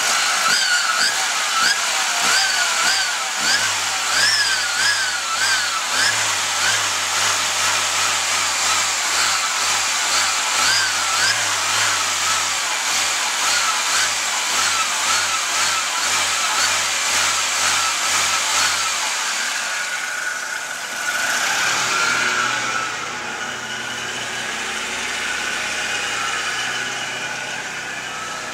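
Volvo 242's turbocharged four-cylinder engine running with a repeated warbling squeal that rises and falls several times a second: the unidentified noise the owner is hunting, not from turbo shaft play, since the shaft has none. About two-thirds of the way through the squeal stops, the engine note changes and the sound becomes quieter.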